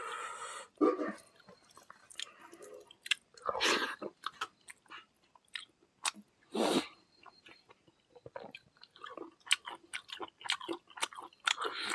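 Close-up eating sounds: chewing and mouth smacks as rice and meat curry are eaten by hand, with many small clicks and two louder hissy sounds about four and seven seconds in.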